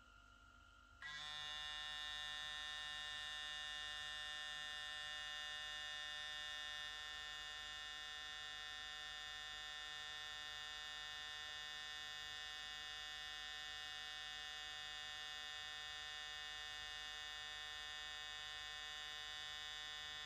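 Kiepe Diavel cordless hair clipper, rated at 10,000 RPM, switched on about a second in and running with a steady motor hum and a high whine in it. Really low noise, about 58 dB on a sound level meter held beside it.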